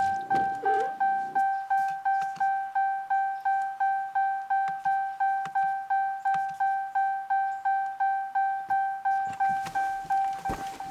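Ram 1500 dashboard warning chime: one bell-like tone, repeated about three times a second, that stops shortly before the end.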